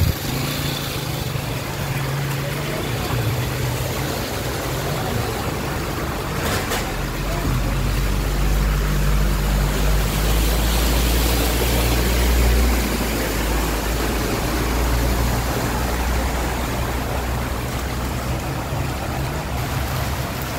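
Vehicles driving through floodwater on a street, their engines humming as water sloshes around their wheels, over a steady wash of rain and water noise. A low rumble swells through the middle as a vehicle passes close.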